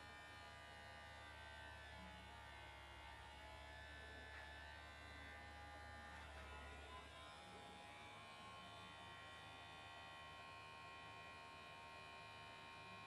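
Faint, steady buzz of a battery-powered children's electric toothbrush running and vibrating inside an aluminium foil tray.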